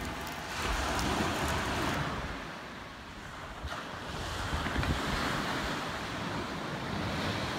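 Ocean surf washing onto the shore, swelling and easing twice, with wind rumbling on the microphone.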